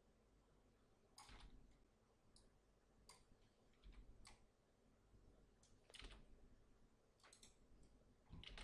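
Faint, irregular clicks of a computer mouse, about eight spread over several seconds.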